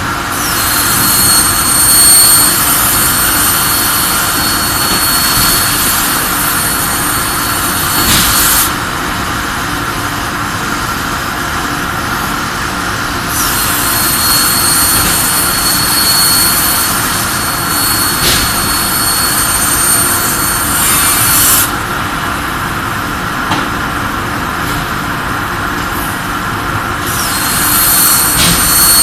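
CNC plasma cutter's torch cutting: a loud high hiss with a steady high-pitched whine in three stretches of about eight seconds each, switching off abruptly between cuts. A steady machinery drone runs underneath.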